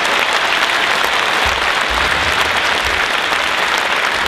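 A large audience applauding steadily: a dense, even crackle of many people clapping.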